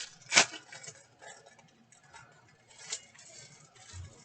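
Handling noises as a folded paper map is opened: a sharp click about half a second in, a softer tick near three seconds, and a small low knock near the end.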